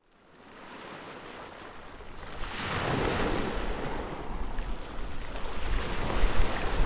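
Sea water churning and rushing, fading in from silence and swelling about three seconds in and again near the end, over a low rumble.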